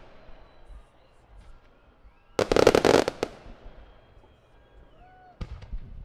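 Fireworks going off: a rapid cluster of sharp bangs and crackle lasting about a second, starting about two and a half seconds in, then two smaller bangs near the end.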